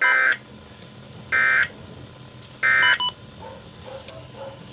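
Three short screechy data bursts of an emergency alert's SAME digital code, each about a third of a second long and about 1.3 s apart. This is the end-of-message code that closes a broadcast alert.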